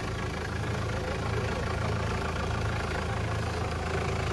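An off-road SUV's engine running steadily at low revs, with its sound sitting low and growing slightly louder after the first half second.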